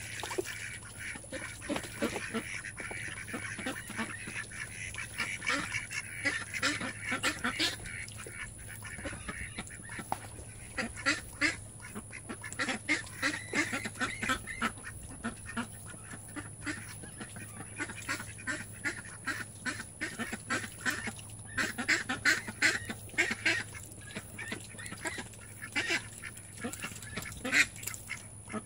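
Domestic duck and her duckling calling: many short calls that come in quick runs, busiest about ten seconds in and again over the last several seconds.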